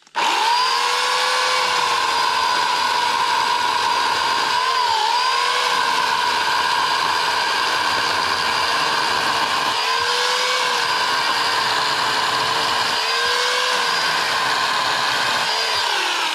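Yardworks 2.5 hp corded electric chainsaw starting up and cutting through small logs: a loud, steady electric motor whine whose pitch dips and recovers a few times as the chain bites into the wood, then begins to fall as the saw winds down near the end.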